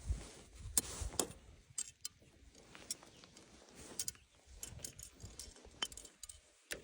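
Faint, scattered light clicks and taps, about a dozen spread irregularly, of fishing tackle being handled.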